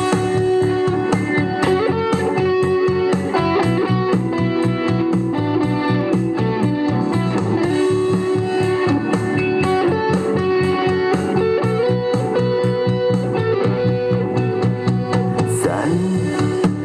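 A guitar-led song with a steady beat, played at maximum volume through an Amazon Echo smart speaker.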